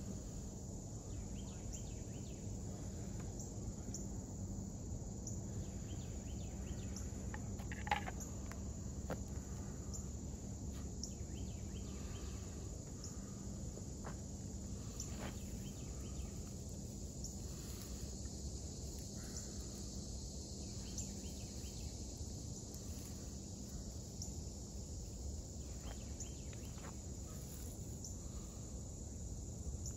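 Outdoor woodland ambience with a steady, high-pitched insect chorus throughout over a low background rumble. A few light clicks and rustles come from tools and pine-needle tinder being handled on a wooden bench, the loudest a sharp click about eight seconds in.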